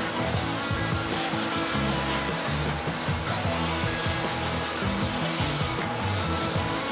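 Hand sanding of painted wood window casing with a sanding block, quick back-and-forth strokes scuffing the dried paint between coats before the final spray coat.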